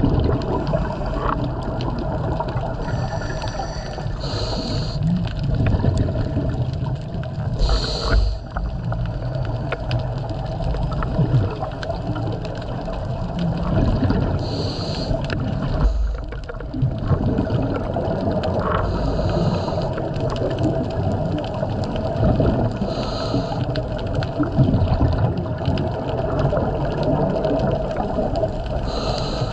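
Scuba diver breathing underwater through a regulator: a short hissing inhalation every four to five seconds, with bubbling, gurgling exhalations between them. A steady hum runs underneath.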